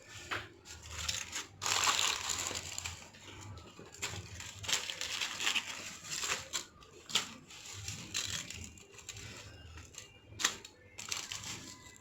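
Hands rubbing a gritty sugar-and-spice dry rub into a rack of ribs in a foil-lined pan: irregular crinkling and scraping of the foil and grains, with scattered light clicks.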